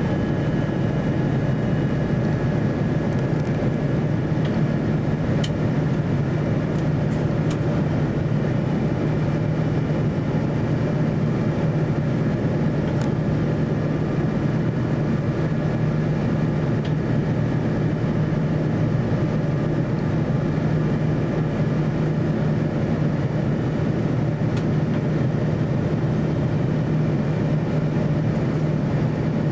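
Steady cabin noise inside an Airbus A350-900 in flight: the Rolls-Royce Trent XWB engines and the airflow around the fuselage make a constant low drone and rushing hiss. A few faint clicks sound over it.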